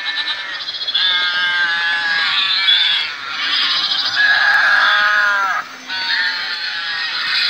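Recorded farm-animal calls, goat and sheep bleats and cattle moos, played by sound-equipped model railway wagons, following one another with barely a pause. A long call falling in pitch comes about four seconds in.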